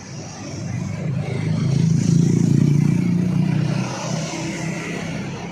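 A bus driving past, its engine swelling to a peak about two seconds in and then fading.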